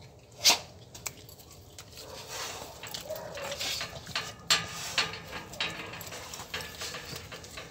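American Staffordshire terriers sniffing and snuffling at close range, with one short sharp sound about half a second in and a few clicks later on.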